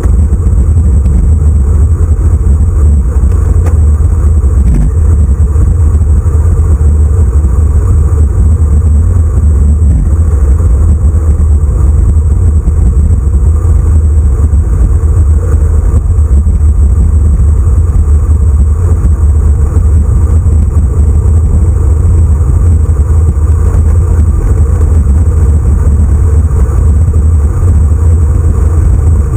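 Steady, loud wind rumble buffeting a handlebar-mounted camera's microphone as a road bike descends at speed.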